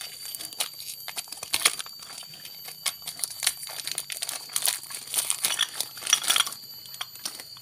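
Clear plastic bag crinkling and tearing as it is worked open by hand, irregular crackles throughout, loudest about one and a half seconds in and again around five to six seconds in.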